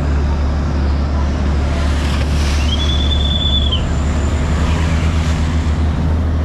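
Steady low drone of a Chao Phraya river boat's engine running under way, with water rushing along the hull. About two and a half seconds in, one high whistle note rises and holds for about a second.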